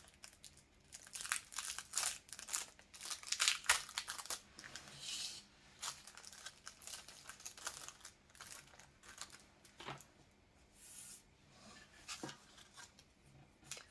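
Packaging crinkling and tearing in irregular bursts, as small cleaning-kit wrappers are handled and opened. The crackling is busiest in the first few seconds, then thins to scattered rustles.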